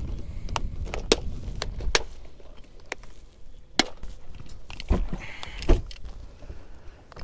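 Sharp plastic clicks and knocks as a tackle box is closed and stowed in a boat's deck storage hatch, then the fibreglass hatch lid shut with two loud thumps about five seconds in. A low rumble sits under the first two seconds.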